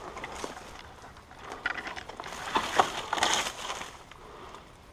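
Dry leaves and undergrowth crunching and rustling under a person's feet and body as they move through the brush, loudest around the middle with a few sharp snaps of twigs.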